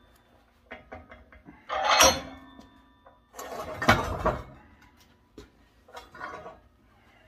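Clanks, clicks and short metallic scrapes as a drill-attachment metal nibbler is handled and positioned against a sheet of 18-gauge copper held in a vise. Two louder scrapes come about two seconds in and about four seconds in, with lighter clicks between.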